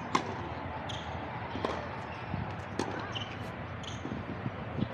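A few sharp knocks or thuds, roughly one a second, with several short high squeaks between them, over a steady low background hum.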